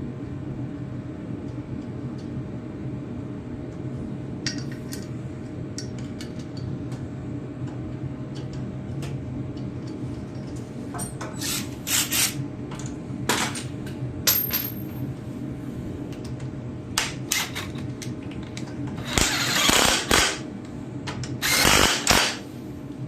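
Metal parts and hand tools clinking and clattering as a cover is fitted back onto a Wheel Horse garden tractor. Two longer noisy bursts of about a second each come near the end, and a steady low hum runs underneath.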